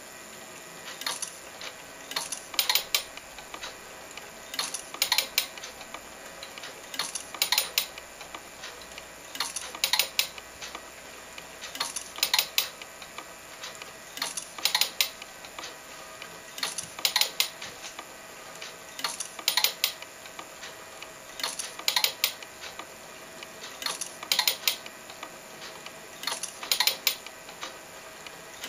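Homemade frame-by-frame film telecine at work: a short cluster of sharp mechanical clicks about every two and a half seconds as the film is stepped on one frame and the converted compact camera takes its picture, over a faint steady hum.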